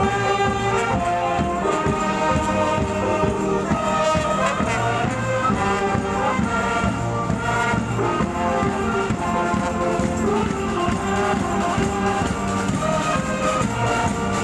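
Women's funeral band playing a continuous melody with percussion keeping the beat.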